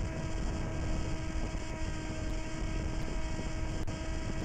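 Wind rumbling on the microphone over a steady, unchanging whine.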